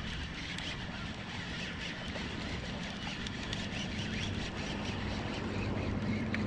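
A steady low engine drone that grows louder in the second half, from a passing motor vehicle or aircraft.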